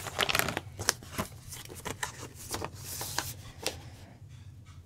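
Paper inner sleeve rustling and crackling as an LP record is slid out of its cardboard jacket and handled, a quick run of sharp crackles and scrapes that dies down near the end.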